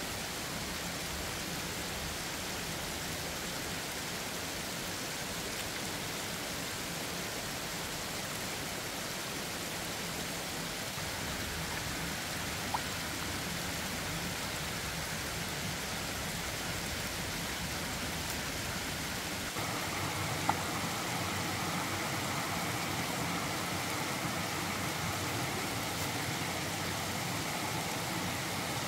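A steady, even hiss of water, like rain, that grows slightly louder about two-thirds of the way in, with two faint clicks.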